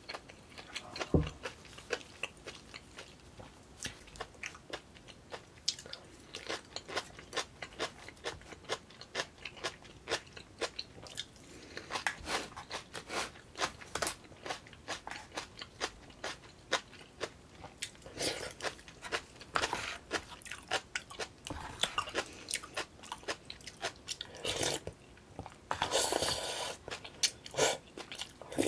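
Close-up eating sounds: a person chewing and crunching mouthfuls of Korean rice, soup and side dishes, a run of short wet clicks, with a dull knock about a second in and a longer, noisier sound near the end.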